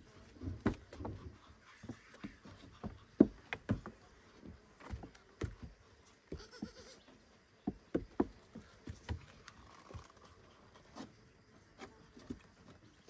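Baby goat scrambling about on old wooden boards: irregular sharp knocks and scuffs of small hooves on the wood, the loudest about three seconds in, with faint goat bleating.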